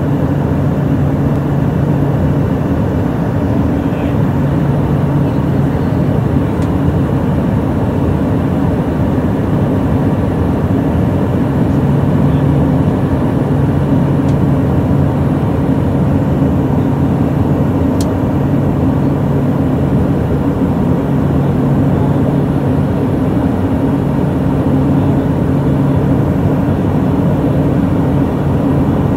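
Turboprop airliner's engine and propeller droning steadily, heard from inside the cabin, with a low hum that swells and fades every few seconds. A single short click about eighteen seconds in.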